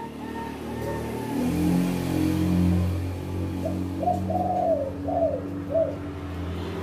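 Caged spotted doves cooing, with a short phrase of four arched coo notes about halfway through. Under it runs a steady low motor-vehicle engine hum, loudest in the first half.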